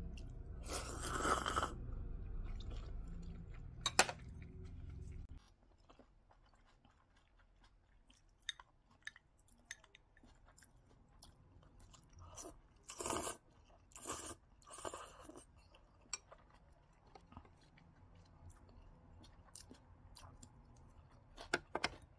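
A person eating cold thin noodles dipped in soy sauce close to the microphone: chewing and a few short slurps, with small clicks in between. A low hum stops suddenly about five seconds in.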